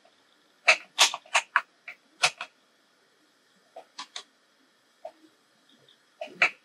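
Hands working stiff gram-flour dough, pulling pieces from a glass bowl and rolling them into logs on a countertop: a scatter of short, sharp taps and squelches with quiet gaps between them.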